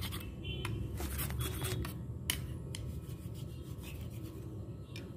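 A ruler's edge chopping jelly slime into small pieces on a marble floor, with a few sharp clicks as the edge strikes the stone.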